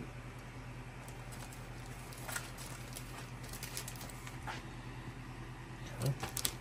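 Clear plastic bag around a paper instruction manual rustling and crinkling as it is handled, with a few small clicks and taps. A steady low hum runs underneath.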